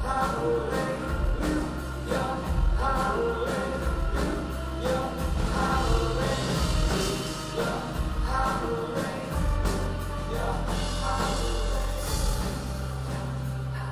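Background music: a song with singing over a steady beat and sustained bass.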